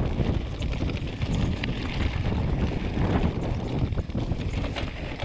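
Wind buffeting the camera microphone over the rolling noise of a full-suspension mountain bike descending a rocky trail, tyres crunching over stones and the bike rattling with scattered knocks.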